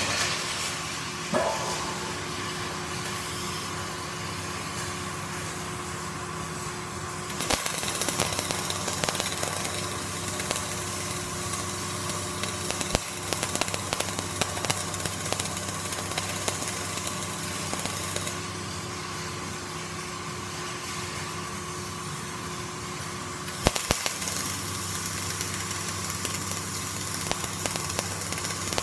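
Flux-cored arc welding: the arc crackles and sputters in two runs, one from about seven seconds in to about eighteen seconds in, the other starting again near the end, over a steady machine hum.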